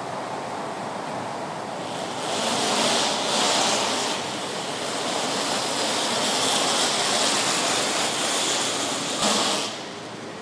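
Steady rushing hiss that swells about two seconds in, holds, and drops off suddenly near the end.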